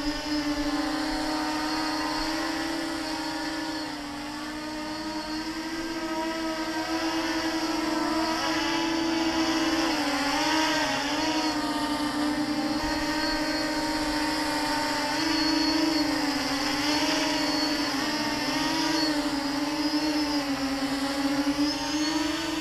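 Quadcopter on a QAV400 frame with a 4S battery: its electric motors and propellers hum and whine in flight, the pitch wavering up and down as the throttle changes.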